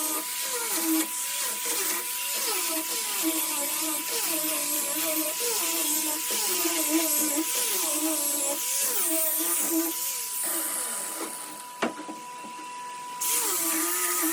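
Random orbital sander running on wood, with a hissing sanding noise over a motor whine that wavers up and down in pitch. The hiss drops away for a few seconds after about ten seconds in, with one sharp click, then comes back.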